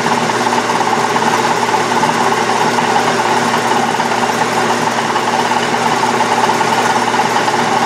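Metal lathe running steadily at speed, its four-jaw chuck spinning, while a center drill in the tailstock chuck is fed into an aluminum block to start a hole. An even machine hum with a steady mid-pitched tone that does not change.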